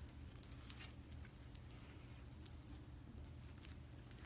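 Faint rustling of a rolled-up knit skirt being handled and draped as a scarf, with scattered light clicks and a low steady hum underneath.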